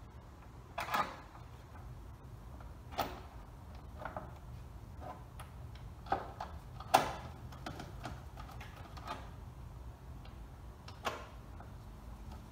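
Scattered light clicks and knocks from parts being handled in a pickup truck's engine bay, about eight separate taps with the loudest about seven seconds in, over a low steady hum.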